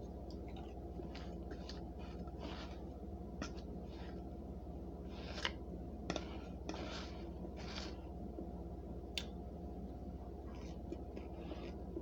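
Someone chewing a mouthful of crunchy starch, with short crisp crunches coming irregularly.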